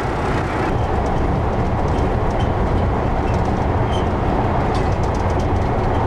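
Diesel locomotive running under way, heard from inside its cab: a steady low rumble of engine and running gear, with a few faint clicks and rattles about four to five seconds in.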